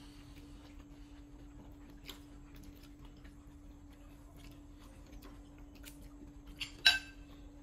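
Metal spoon clinking against a ceramic dish while serving food, faint scattered clicks, then one sharp ringing clink about seven seconds in. A steady low hum runs underneath.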